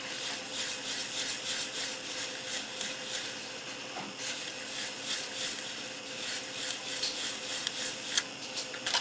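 8000-grit polishing cloth rubbed dry, back and forth over the painted plastic body of a model car, a soft, repeated scratchy scrubbing.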